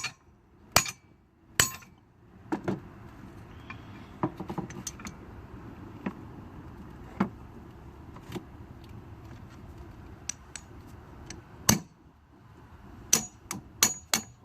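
Hammer striking a crimping tool, metal on metal, to crimp a ring terminal onto a wire. Three sharp blows in the first two seconds, then lighter taps and clinks, one more hard blow later on, and a fast run of blows, about three a second, near the end.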